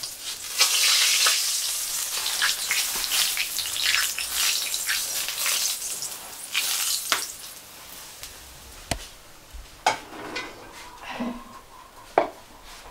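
Hot oil sizzling as it scalds cornmeal (fubá) being stirred. The sizzle is loud for about the first seven seconds, then dies down to a softer hiss broken by a few sharp knocks.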